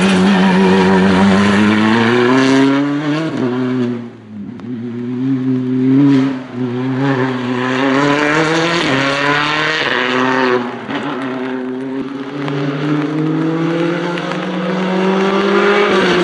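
Hyundai i20 rally car engine revving hard through the gears, the engine note climbing and then dropping at each gear change, with a short lift-off about four seconds in.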